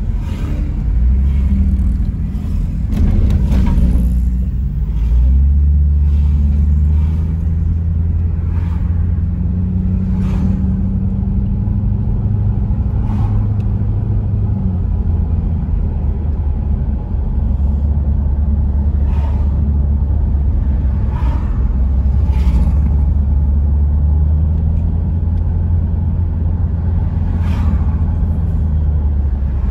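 Car engine and road rumble heard inside the cabin while driving, a steady low drone whose pitch shifts a few times as the car changes speed.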